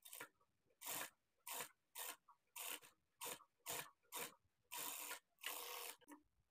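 Industrial sewing machine stitching a neck binding in about ten short spurts, each a soft rasping run of stitches under a second long.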